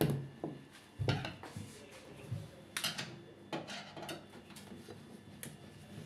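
Tools and parts being handled on a washing machine's top panel: a series of irregular knocks and clatters. The loudest come at the very start and about a second in.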